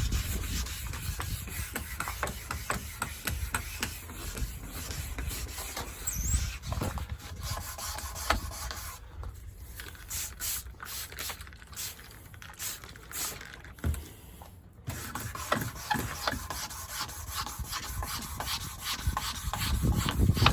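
Hand wet sanding of the paint on a 1984 Corvette's fiberglass body with fine 1500-grit sandpaper: quick, uneven back-and-forth rubbing strokes across the wet surface, with no power sander running.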